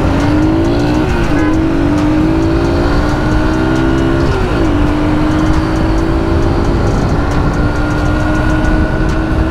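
Kawasaki KSR 110's single-cylinder four-stroke engine pulling away and accelerating through the gears. Its pitch climbs, drops back at an upshift about a second in and again at about four and a half seconds in, then holds fairly steady, with wind rushing over the microphone.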